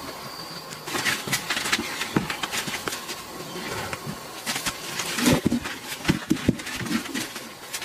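Knocks and scrapes of a rubber tyre feeding trough being handled and moved in a pig pen, with short grunts from a pig about five seconds in.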